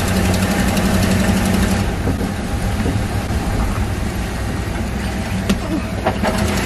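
Vintage RV's engine running while driving, heard from inside the cabin as a steady low drone with road noise. There are a couple of light knocks near the end.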